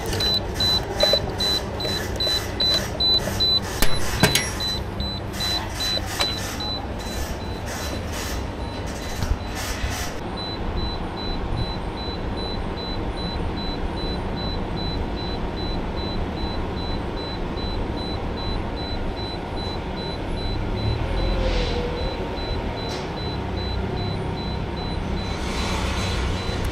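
Steady low machinery rumble, with a rapid beeping of about two beeps a second that stops about ten seconds in, leaving a faint steady high tone.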